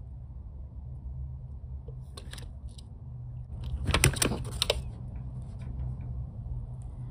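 Quick sharp taps and scrapes of a cat's paw batting against the window at a gray squirrel, loudest about four seconds in, with a few lighter taps earlier. A steady low hum runs underneath.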